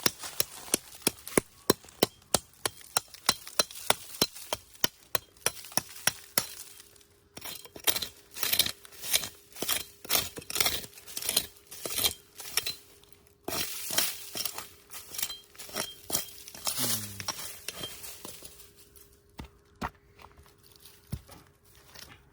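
Sharp, regular knife strokes chopping on a cutting board, about three a second at first, then in irregular runs of strokes.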